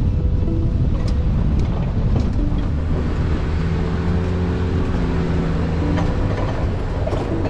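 Jeep Wranglers driving a dirt trail: steady engine and tyre rumble, with a few sharp ticks in the first couple of seconds.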